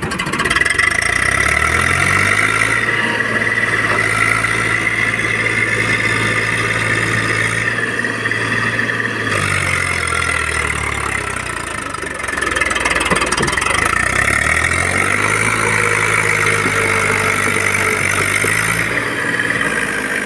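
Eicher 380 tractor's diesel engine working under load as it pulls a loaded trailer through shallow water. The revs rise about two seconds in and hold, drop briefly near the middle, then climb and hold again before easing off near the end.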